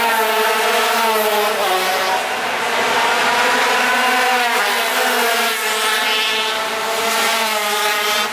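Several racing motorcycles passing on a street circuit, their engines revving up and down in overlapping rising and falling pitches.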